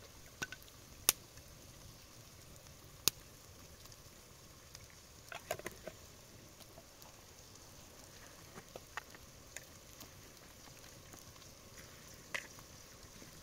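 Small open wood fire crackling under a cooking pan: a faint steady hiss with scattered sharp pops, the loudest about one and three seconds in. A short cluster of light ringing clinks comes about five and a half seconds in.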